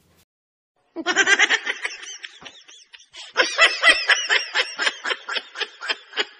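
A man laughing hard in quick repeated ha-ha pulses. It starts about a second in, breaks off briefly about halfway, then goes on.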